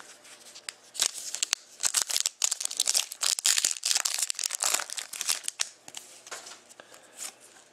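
Foil wrapper of a Panini Crown Royale hockey card pack being torn open and crinkled by hand: a run of sharp crackles. The crackling thins out and gets quieter near the end.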